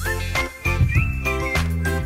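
Background music: a melody line over a steady bass beat.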